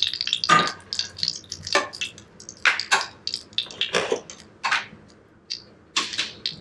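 Hot frying oil crackling and popping in a cast iron skillet, irregular pops that thin out near the end, with a few louder clatters of a spatula and dishes.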